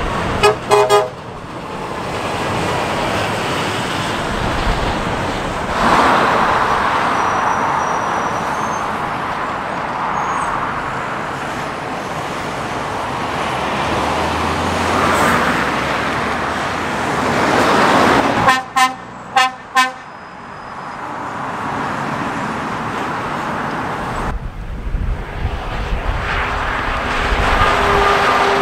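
Traffic on a dual carriageway going past, the tyre and engine noise swelling as each vehicle passes. A vehicle horn, most likely a passing lorry's, gives about three quick toots right at the start and a few more about 18 seconds in.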